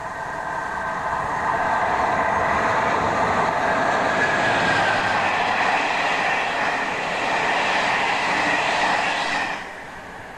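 A train passing on the main line: a rush of wheels on rail that builds over the first couple of seconds, stays loud, then cuts off suddenly about nine and a half seconds in as it clears.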